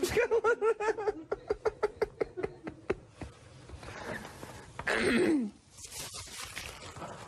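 A man in a fit of giggling: a rapid run of short, high-pitched pulses, about seven a second, for some three seconds, then a squealing wheeze that falls in pitch about five seconds in.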